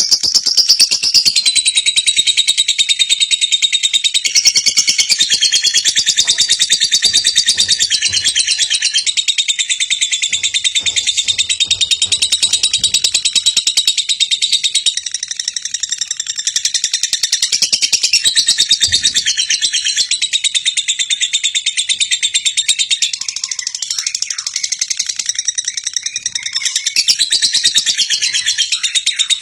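Lovebird singing a long, unbroken chattering trill of very rapid notes.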